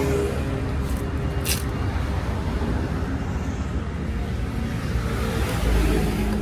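Steady low rumble of road traffic, with two short sharp clicks about a second and a second and a half in.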